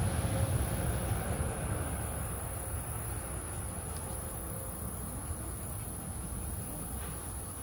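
Steady high-pitched chorus of insects trilling, with a low rumble underneath that slowly fades away.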